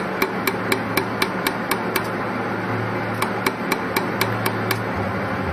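Pulsed laser welder firing, a sharp click with each laser pulse at about four to five a second, over the machine's steady hum, as two small metal tubes are welded together.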